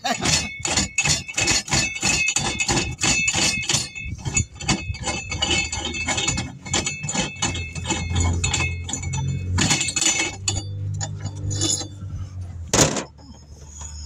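A hammer striking metal over and over, about three ringing taps a second, knocking old wheel weights off a rim. In the second half a low machine hum comes in, and there is one hard bang near the end.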